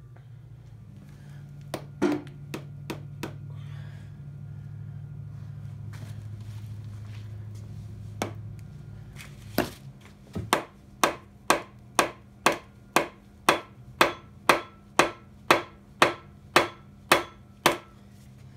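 Mallet striking the crankshaft of a 7.3 IDI diesel engine block to turn it over. A few scattered blows come first, then a steady run of sharp strikes at about two a second.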